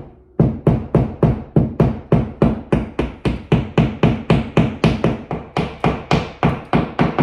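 Hammer tapping wall anchors into drilled holes until they sit flush: a fast, even run of light strikes, about four or five a second, after a brief pause at the start.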